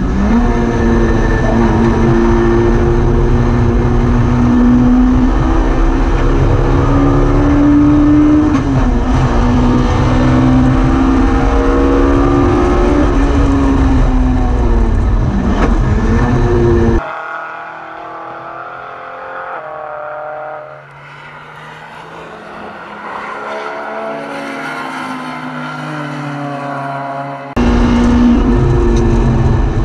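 Onboard sound of a Hillman Imp-based race car's four-cylinder engine under hard acceleration, its pitch climbing and dropping back at each gear change. About halfway through the sound suddenly turns much quieter and muffled for around ten seconds, then cuts back in at full level near the end.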